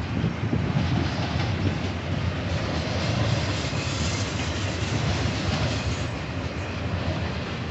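Freight train cars rolling past: a steady rumble with the clickety-clack of steel wheels over the rails.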